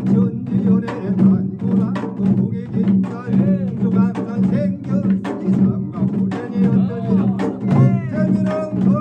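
Korean pungmul ensemble of janggu hourglass drums and buk barrel drums beating a steady, even rhythm as binari accompaniment. A man's chanting voice rises over the drums about three and a half seconds in and again near the end.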